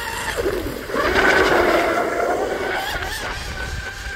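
Electric RC tunnel powerboat's 3674 1650kV brushless motor and propeller whining at speed, with a wash of spray noise. It swells loudest about a second in as the boat passes close, then eases off.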